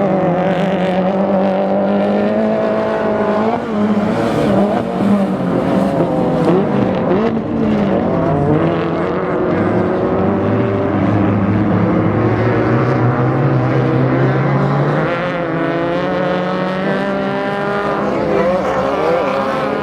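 Off-road race car's engine running hard at high revs, its pitch holding, dropping and climbing again as the car accelerates, lifts off and changes gear.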